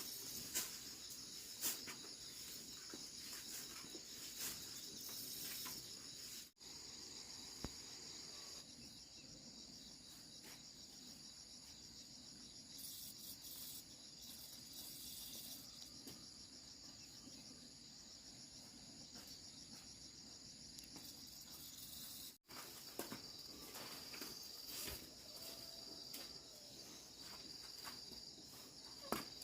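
Faint, steady high-pitched chirring of insects, with a few light knocks. The sound drops out abruptly for an instant twice.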